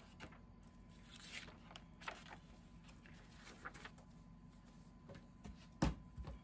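Paper rustling softly as the pages of a printed owner's manual are turned and handled. A sharp knock a little before the end, followed by a couple of softer thumps, as things are set down on a wooden table.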